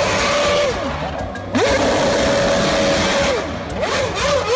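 Red Bull Formula One car's engine running at high revs as it spins donuts, the pitch held steady for a couple of seconds and dropping and climbing sharply as the throttle is lifted and reapplied, over a hiss of spinning tyres.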